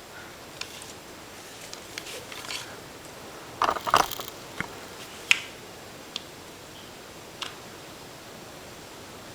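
Small parts of a motorcycle fuel pump handled during reassembly: scattered light clicks and rattles of plastic and metal pieces, the loudest flurry about four seconds in and a single sharp click about a second later.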